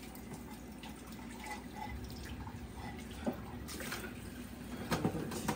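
Kitchen faucet running into a stainless steel sink as plates are rinsed under it. A few short clinks of dishes come about three seconds in and near the end.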